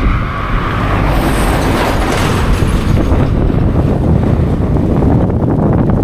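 Gale-force wind buffeting the microphone, a loud, continuous rumble with a brighter hiss that swells about a second in and eases off again by about three seconds.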